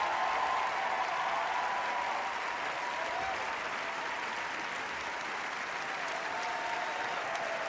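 Large theatre audience applauding steadily, with a few held cheers rising above the clapping.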